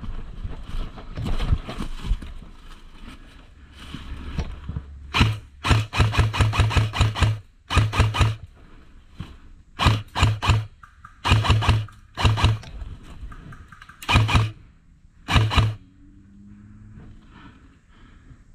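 Airsoft rifle firing in bursts: one long rapid string, then several short bursts over about ten seconds. Before the shooting, footsteps crunch through dry leaf litter.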